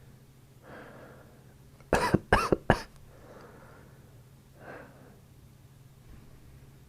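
A man with a cold coughing: a quick fit of three or four coughs about two seconds in, with soft breaths before and after.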